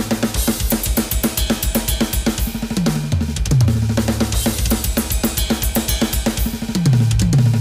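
Roland V-Drums electronic kit playing a fast metal-style drum fill in RLL KKL RLL RLL sticking: rapid hand strokes broken by double bass-drum kicks, with cymbals. The tom runs fall in pitch about three seconds in and again near the end.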